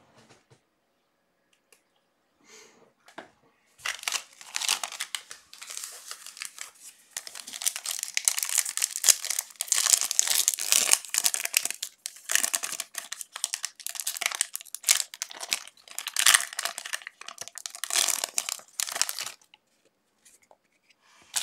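Foil trading-card pack wrappers being torn open and crinkled by hand. The crackling starts about four seconds in and comes in irregular spurts for some fifteen seconds.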